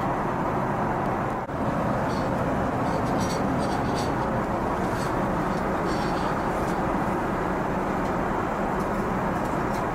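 Steady rushing cabin noise of an Airbus A380 airliner in cruise, heard from inside the cabin, with a few faint rustles and taps as a leather menu folder is handled and opened.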